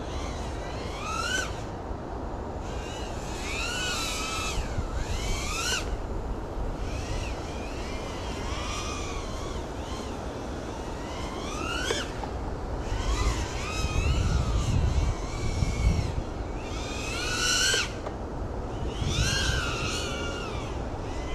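FPV quadcopter's brushless motors whining, the pitch rising and falling in bursts of a second or two as the throttle is worked, with short gaps between. A low rumble swells in the middle.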